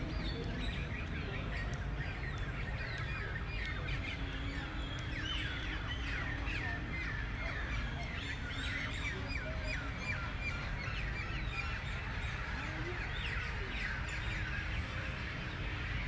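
A chorus of many birds chirping in trees: dense, overlapping short high chirps and calls, busiest around the middle, over a steady low rumble.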